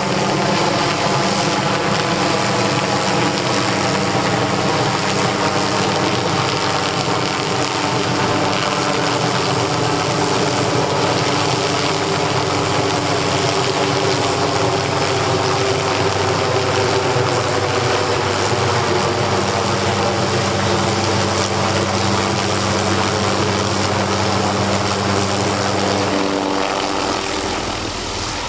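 Light helicopter flying close overhead: a loud, steady rotor and engine sound with a constant hum of even tones, easing a little near the end.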